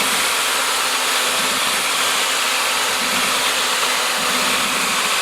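Electric mixing machine (stirring drill) running steadily, churning a two-part powder-and-liquid adhesive in a barrel: an even whirring noise over a faint steady motor hum.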